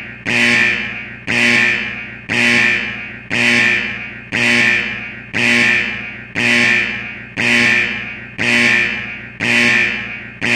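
Synthesized emergency-alert-style alarm: a sharp, plucked-sounding tone that strikes and fades about once a second, repeating steadily.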